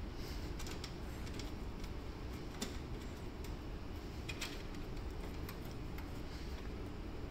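Scattered light clicks and taps, irregularly spaced, from hands handling a rack-mount NAS server's metal chassis, over a steady low hum.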